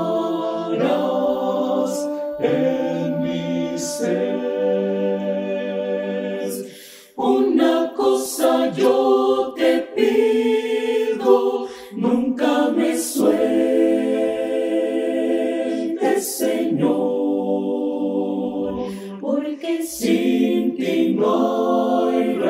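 Mixed choir of women's and men's voices singing a Spanish hymn a cappella in held chords, with a short break about seven seconds in.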